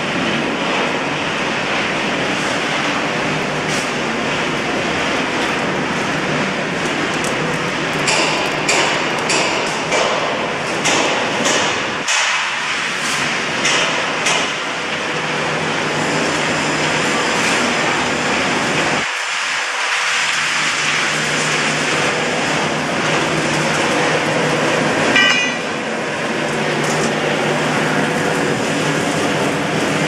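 Rotary drum dryer for bamboo chips running with a steady, loud machine din and a low hum, and a run of sharp clattering knocks around the middle.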